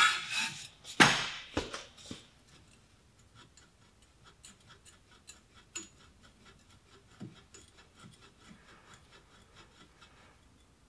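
Two loud metal knocks near the start as a socket wrench with a long extension pipe is set on a seized brake caliper carrier Torx bolt. Then faint ticking, a few ticks a second, as the wrench is worked in short pulses against the stuck bolt.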